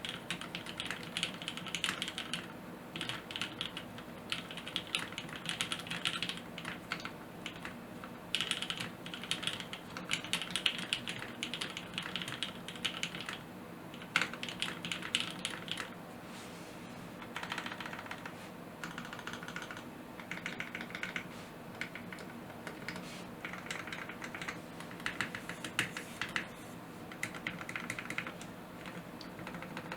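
Typing on a custom mechanical keyboard with lubed Gateron Pink linear switches in an aluminium plate and GMK keycaps: fast runs of soft clacking keystrokes in bursts of a few seconds, with short pauses between them.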